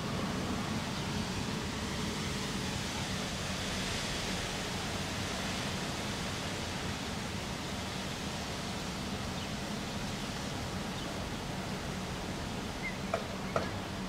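Steady outdoor background noise with a faint low hum underneath, and two short clicks about a second before the end.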